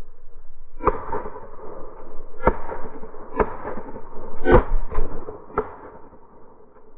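A volley of shotgun shots from several hunters firing at a flushed pheasant: about six shots within five seconds, four loud ones and two fainter near the end. The audio is slowed down, so each shot is a deep, drawn-out boom.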